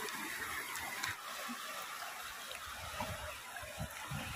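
River water flowing, a steady even rush. A low fluttering sound joins in during the second half.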